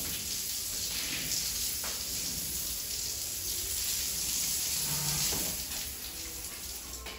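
Pressure-washer spray gun jetting water onto a wet, foamy tiled floor: a steady hiss of spray that eases off a little near the end.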